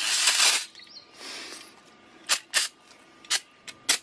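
Aerosol brake cleaner spraying onto a pressure washer pump head: a long hiss that stops about half a second in, then a fainter spray and several short squirts.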